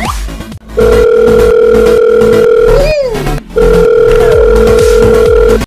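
Electronic background music with a steady beat, overlaid by two long, loud, steady electronic tones like a dial tone, each about two seconds. Between them comes a short sliding glide that rises and then falls.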